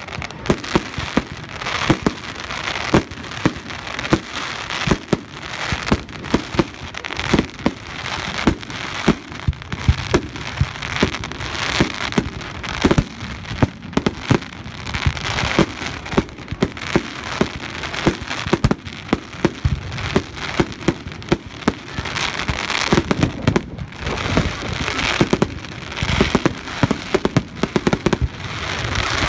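Fireworks display: a rapid, continuous barrage of bangs from bursting aerial fireworks, several a second, over a dense noisy wash.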